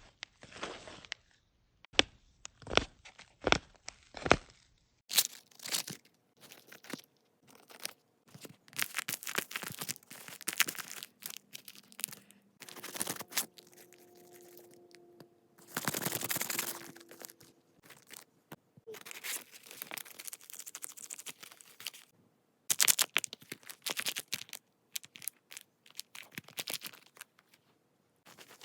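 A string of irregular tearing and crinkling handling noises with sharp clicks, some bursts lasting a second or two, others brief, with short pauses between.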